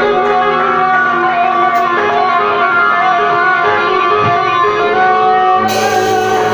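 A band playing, led by guitar, with held, layered notes at an even level; a bright hiss joins in for about a second near the end.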